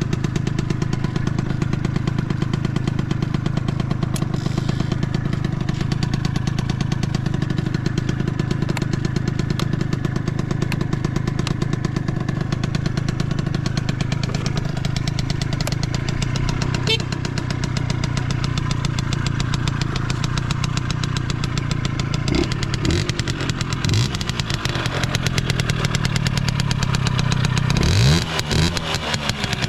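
Suzuki Hi CA19A 50cc two-stroke scooter engine with a Mihara coiled expansion chamber, idling steadily. Near the end the throttle is blipped a few times and the revs rise briefly. It runs with no abnormal noise.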